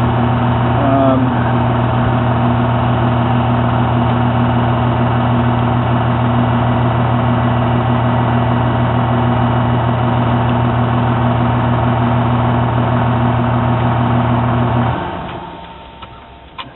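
A motor running with a steady, even hum, then winding down and stopping about fifteen seconds in.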